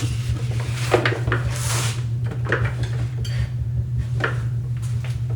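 Metal hand tools clinking and rattling against each other inside a loaded wooden toolbox, with a few sharp clanks.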